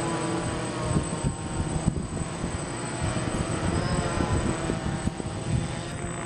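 DJI F550 Flame Wheel hexacopter hovering, its six motors and propellers buzzing steadily, the pitch wavering a little as it holds position.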